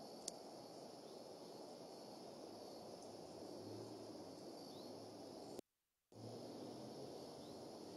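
Faint outdoor ambience picked up by a nest camera's microphone: a steady low hiss with an even, high insect-like drone over it. There is one sharp click shortly after the start and a brief dropout to dead silence a little past the middle.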